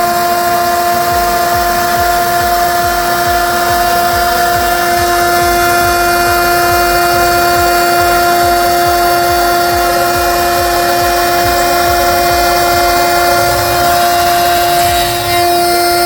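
Single-head CNC milling machine's spindle running with a steady high whine while the cutter mills a lock cutout in an aluminium profile, with a fast low pulsing beneath and a brief dip in loudness near the end.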